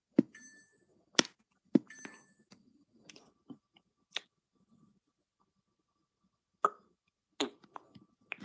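Handling noise from a phone held right against the body: scattered sharp taps and knocks at irregular intervals, some followed by brief rustling of clothing, with a couple of faint short high squeaks near the start and about two seconds in.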